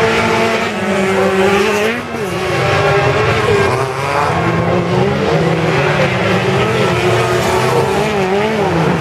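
Several autocross race car engines revving hard as the pack races past on a dirt track, their pitch climbing and dropping with each gear change and throttle lift, with more than one engine heard at once.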